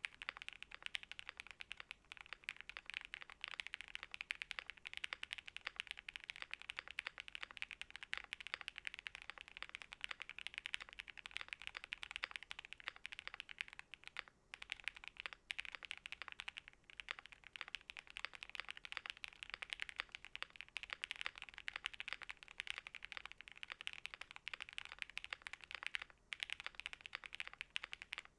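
Continuous fast typing on a QK65 custom mechanical keyboard with lubed Quartz V2 switches, GMK keycaps, an FR4 plate, all foams and a silicone dampener: dense, relatively deep keystroke clacks. There are two short breaks, one about halfway through and one near the end.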